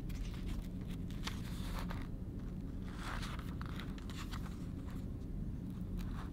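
Paperback book being opened and its pages turned by hand: several short paper rustles and rubs over a low steady hum.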